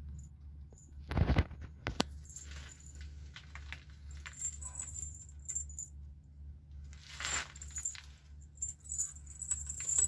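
Pigeons moving about in a wire-mesh loft: scattered small clicks and a sharp click, with two short rustling bursts about a second in and about seven seconds in, over a low steady hum. There is no cooing.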